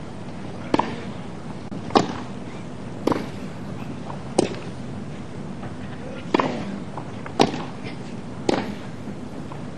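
Tennis rally on a grass court: the ball is struck back and forth by the players' rackets, sharp pops roughly a second apart, about seven in all, over steady background noise.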